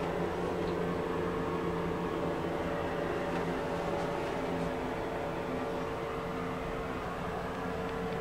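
A steady electrical or mechanical hum with a constant hiss under it, unchanging throughout; a lower part of the hum fades out about halfway through.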